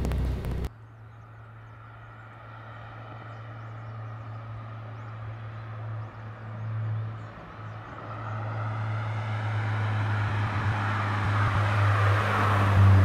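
A 13B rotary-swapped SA22C Mazda RX-7 driving toward the listener, its engine and tyre noise growing steadily louder over the last several seconds and loudest near the end. Before that a steady low engine hum, and at the very start a louder low rumble that cuts off abruptly under a second in.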